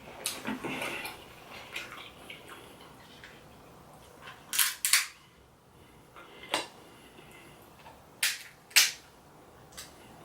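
Seafood shells being cracked and snapped apart by hand during eating: about five sharp, loud cracks, some in quick pairs, after softer crunching in the first second.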